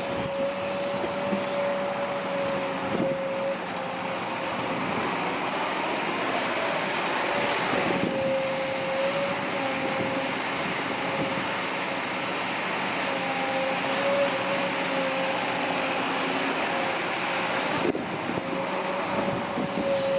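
Kobelco SK200-8 hydraulic excavator running, its diesel engine and hydraulics making a steady mechanical noise with a high whine that wavers and drops out briefly a few times.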